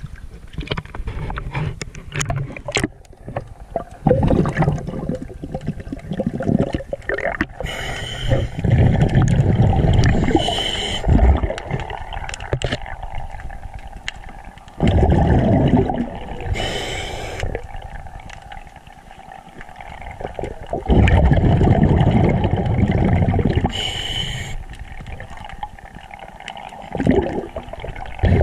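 Underwater scuba breathing: a diver's regulator, each exhalation a loud gurgling rush of bubbles lasting two or three seconds, about every six seconds, with short hisses of inhalation between. Splashing and knocks come first, as the camera goes under.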